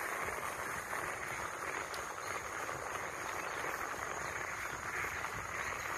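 Steady noise of riding a bicycle along a paved road: wind and tyre hiss, with a faint constant high-pitched buzz underneath.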